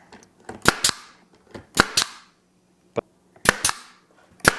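Pneumatic nail gun firing over and over, mostly two shots in quick succession about once a second, each shot followed by a short hiss of exhaust air.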